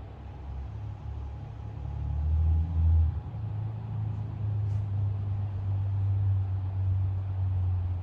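A motor vehicle's engine running nearby as a low rumble, swelling about two seconds in, shifting pitch slightly about three seconds in, then holding steady.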